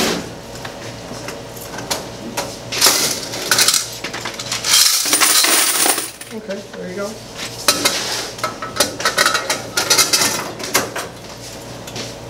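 Quarters clattering as a washer's metal coin box is emptied into a bucket: scattered clinks and rattles, with a dense pour of coins about five seconds in.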